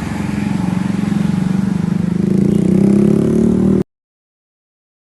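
Bus engine running and revving up, growing louder a little after two seconds in, then cut off abruptly just before four seconds.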